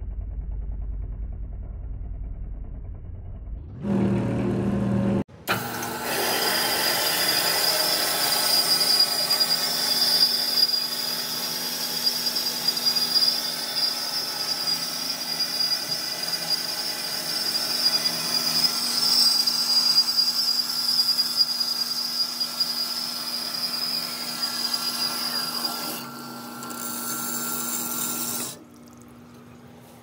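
Hydmech metal-cutting bandsaw cutting metal bar stock under flood coolant: a steady run with a constant high tone, starting suddenly about five seconds in and stopping shortly before the end. Before it, the knurled workpiece turns on the lathe with a low rumble.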